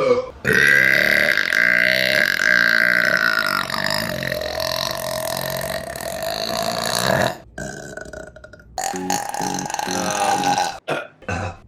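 Women burping: one very long, drawn-out burp of about seven seconds, then after a short break a second burp of about two seconds and a brief one near the end.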